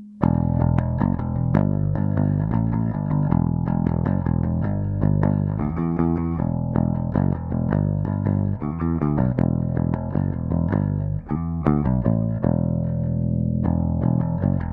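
2011 Gibson Les Paul Standard electric bass played with plucked notes, a busy line of quick, sharply attacked notes starting a moment in.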